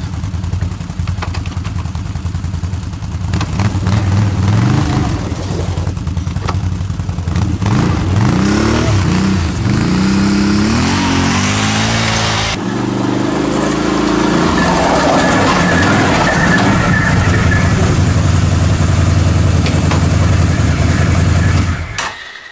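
ATV (quad) engines running as the quads drive off over snow, the pitch rising and falling repeatedly with the throttle in the middle. The engine sound cuts off suddenly just before the end.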